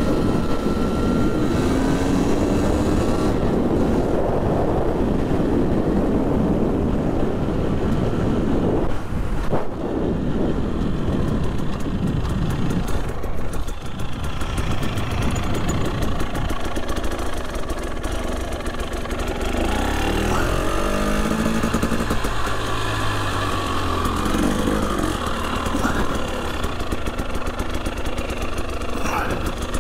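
Husqvarna two-stroke, fuel-injected dirt bike engine running under way, its pitch rising and falling with the throttle, heard over wind noise, in the first half especially. The bike is being ridden gently while its new engine is run in.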